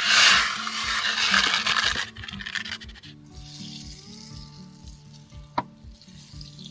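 A loud hissing rush fills the first two seconds, swelling and fading, over background music with a steady beat. The music carries on alone after that, with a single sharp click near the end.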